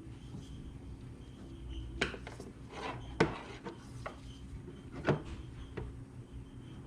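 Scattered light clicks and knocks of metal parts being handled, the sharpest about three seconds in and another about five seconds in, as brake pads, the pad-wear sensor and tools are worked on by hand, over a low steady hum.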